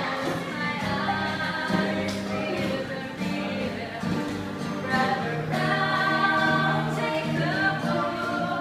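Acoustic guitar played live while a group of voices sings along.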